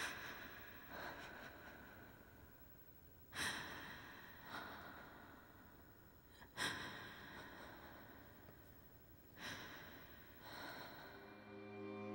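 A person's uneven breathing: about seven sharp breaths and sighs, a second to three seconds apart, each trailing off. Music with held notes fades in near the end.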